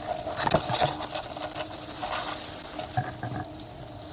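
Dry alang-alang grass rustling and crackling as it is pushed and handled, a run of small irregular crackles.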